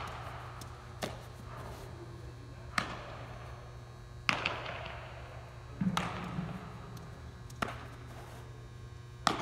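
Baseball smacking into leather fielding gloves during throwing and catching, six sharp pops about a second and a half apart, each echoing in a large indoor hall. A steady electrical hum runs underneath.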